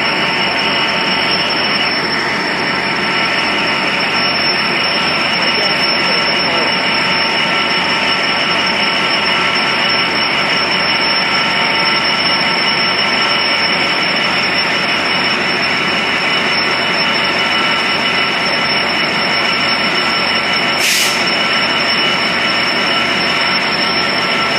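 Amtrak F59PHI diesel-electric locomotive standing with its engine running, a loud steady drone with a steady whine over it. A short hiss comes near the end.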